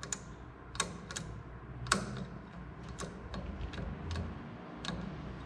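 Irregular sharp clicks, several seconds of them, from the Oliver 88's hydroelectric (electric-over-hydraulic) control switch and lever being worked up and down.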